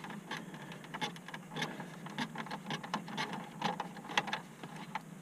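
Light, irregular clicking of a socket ratchet backing out a 7 mm bolt that holds the gauge cluster, several clicks a second.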